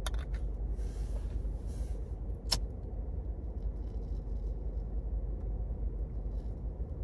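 A Clipper pipe lighter being lit: a short hiss, then one sharp click about two and a half seconds in, followed by a faint sizzle of the tobacco as a corn cob pipe is lit, all over a steady low rumble inside a car.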